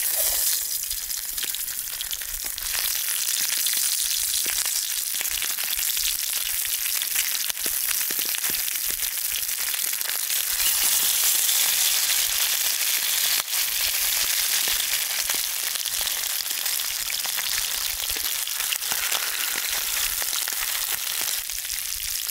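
Brook trout frying in a pan, sizzling steadily with a fine crackle.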